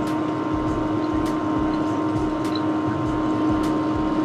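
Small submerged electric utility pump running with a steady hum, with the liquid churning around it as it circulates descaling solution through a diesel engine's cooling lines.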